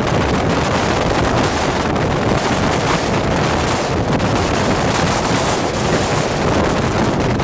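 Steady rush of wind buffeting the microphone with the running noise of a moving passenger train, heard from its open window. Near the end an oncoming freight train, an electric locomotive hauling hopper wagons, starts passing on the next track.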